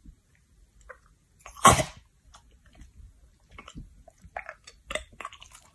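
One loud sneeze-like snort about two seconds in, then a run of small wet clicks and smacks from a chocolate Labrador's mouth as it licks and nibbles at a calico cat's fur.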